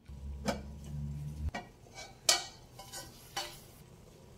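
A ladle stirring thick beans in a clay pot, knocking and scraping against the pot several times, the loudest knock a little past two seconds in. A low hum runs under the first second and a half.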